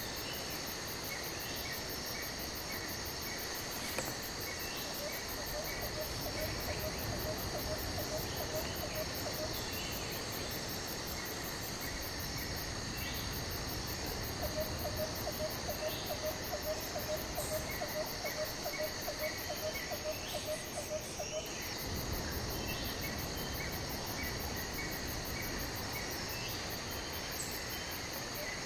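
Insects chirring steadily in a high, continuous drone, with a lower rapid pulsing trill that comes and goes twice and short chirps repeating every second or two.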